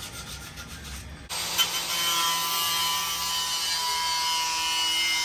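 Quiet rhythmic scraping, then, just over a second in, an abrupt change to a steady workshop machine running with a whine and a hissing rush.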